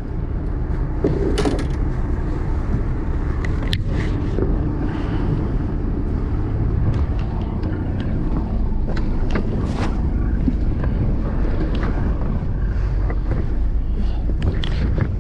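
A boat's engine running steadily, with wind on the microphone and a few sharp knocks and clicks scattered through.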